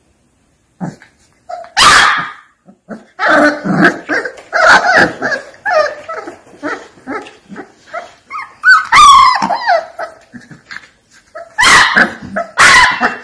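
Alapaha Blue Blood Bulldog puppies yipping and barking as they roughhouse with each other: a quick string of short high calls, broken by a few louder barks, two of them close together near the end.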